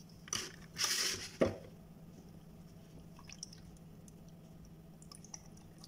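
Whole milk poured from a carton into a plastic blender jar over chunks of fruit and ice, a faint liquid trickle. A short rustling hiss about a second in, then a click, as the carton is opened.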